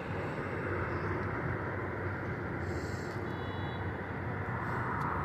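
Steady distant roar of jet aircraft engines around the airport, with a brief faint high beep about three seconds in.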